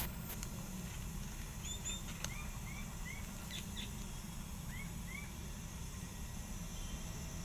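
A steady low hum with a few faint, short animal chirps over it. The chirps rise and fall in pitch, come singly or in pairs, and are spread through the middle of the stretch.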